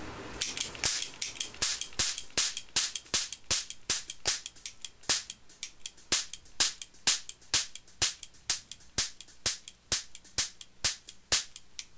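Bronco 44 die-cast metal cap gun firing 50-shot paper roll caps, its trigger pulled over and over: sharp pops in quick succession, about three a second.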